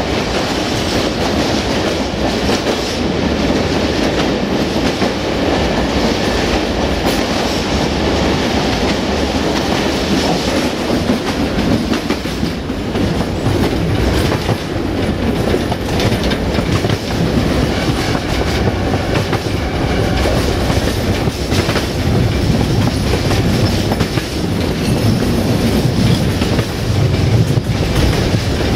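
Train running along jointed track: a steady rumble of wheels on rail with clickety-clack over the rail joints.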